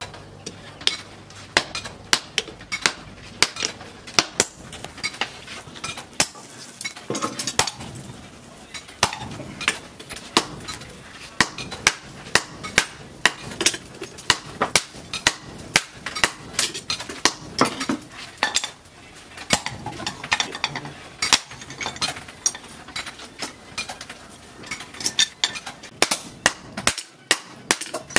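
Hammer striking red-hot steel on a steel anvil while forging an axe head: a steady run of ringing metallic blows, roughly two a second, with two short pauses.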